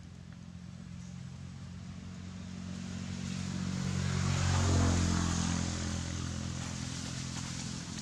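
A motor vehicle passing by: its engine hum grows steadily louder, peaks a little after the middle, then fades.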